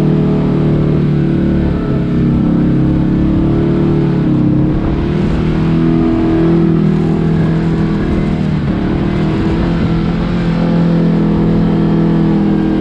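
Kawasaki KRX 1000 side-by-side's parallel-twin engine running under throttle, its pitch shifting up and down a few times as the revs change.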